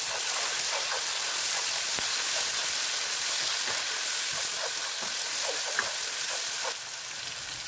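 Chopped tomatoes and green chillies sizzling in hot oil with fried onions, ginger and garlic, stirred and scraped with a spatula around a frying pan. The sizzle is loud and steady, then eases a little near the end.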